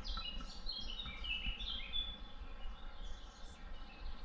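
A songbird singing outdoors: a quick run of short, downward-sliding chirps for the first two seconds or so, then a few fainter notes, over a low steady rumble.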